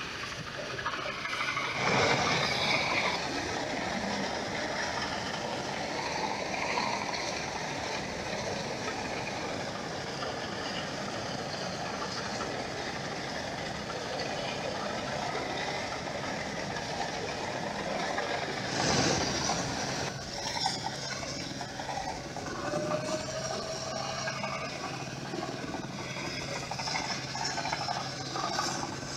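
New Holland 8060 combine harvester running as it travels along the road: a steady engine drone, with louder swells about two seconds in and again past the middle.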